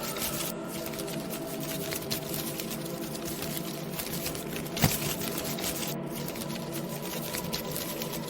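Steady Halloween ambience soundscape: a continuous noisy bed with faint held low tones and a dense fine crackle of small ticks, broken by one sharp click about five seconds in.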